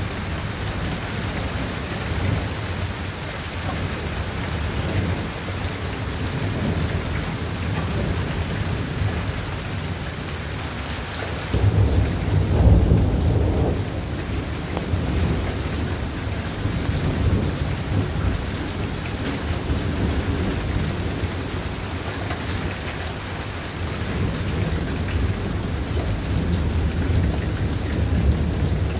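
Thunderstorm: steady rain with thunder rumbling low, and a louder peal of thunder about twelve seconds in that lasts a couple of seconds.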